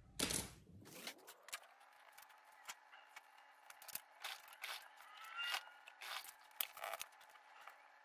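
Quiet, rapid clicks and scrapes of wooden sticks, pins and tools being handled on a cutting mat during truss assembly, sped up, over a faint steady hum.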